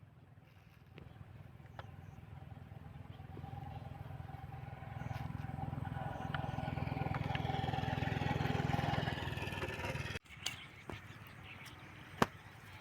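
An engine running and growing steadily louder for about nine seconds, cut off abruptly about ten seconds in. A few light clicks and one sharp tap follow near the end.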